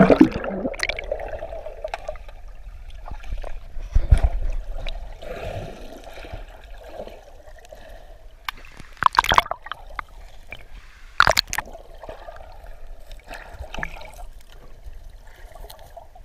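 A swimmer heard underwater through a GoPro camera's waterproof housing: muffled bubbling and gurgling water. There is a splash as he goes under at the start, a dull thump about four seconds in, and two sharp knocks later on.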